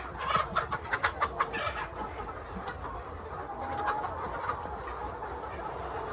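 Laying hens clucking: a quick run of short clucks in the first two seconds, then a single longer call about four seconds in, over a steady low hum.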